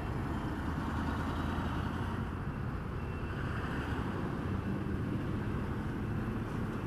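Motor scooter engine running steadily while riding, with road noise.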